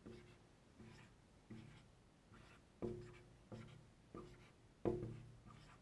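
Felt-tip marker writing digits on a whiteboard: a faint run of about eight short strokes, one after another, the stronger ones about three and five seconds in.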